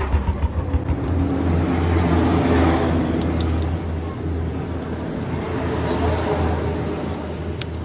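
Honda 125 motorcycle engine running, with a regular pulsing beat in the first second and a swell of louder noise about two to three seconds in.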